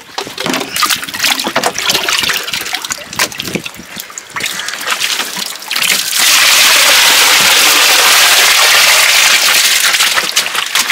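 Irregular splashes and knocks as live fish are handled in a plastic crate of seawater. About six seconds in, a steady, loud gush as the crate is tipped and its seawater and fish pour into a plastic tub.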